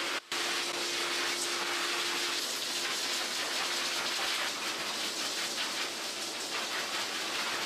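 High-velocity pet grooming dryer blowing air through its hose and nozzle into a dog's thick wet coat: a steady loud hiss of rushing air, with a faint motor hum under it in the first half.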